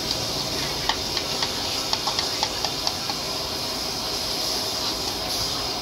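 Hot oil sizzling and bubbling hard in a wok, a steady hiss. A quick run of sharp metal clicks from the steel ladle stirring against the wok comes between about one and three seconds in.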